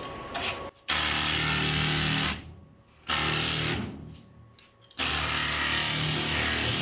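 Pneumatic air file (straight-line body sander) running in three bursts, winding down between them each time the trigger is released.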